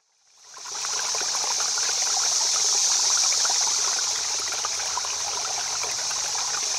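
Water running and burbling over stones in a shallow stream, a steady rush with many small bubbling splashes. It fades in over the first second.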